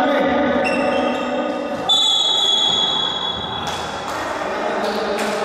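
A referee's whistle is blown once, about two seconds in: a single steady high tone lasting about a second and a half. It is followed by a few sharp thuds, likely a basketball bouncing on the gym floor, with voices in the echoing hall.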